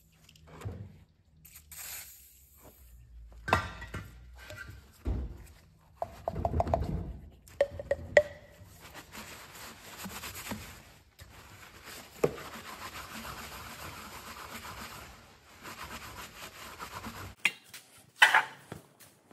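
Hand work on small cast-iron engine parts on a workbench: metal parts knocking and clinking now and then, then several seconds of steady rubbing as a rag wipes a part, and a sharp metal knock near the end.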